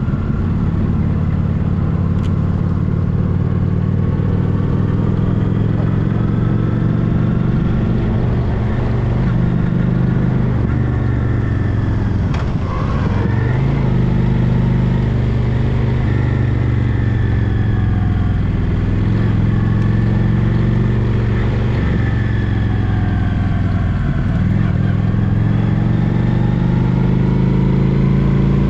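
Honda Shadow Spirit VT750 cruiser's V-twin engine running while riding on a gravel road. The engine note rises and falls with the throttle, dipping sharply and climbing back twice, a little before halfway and again near the end.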